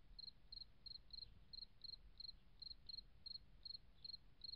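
Faint, steady insect chirping: short high chirps repeating evenly, about three a second.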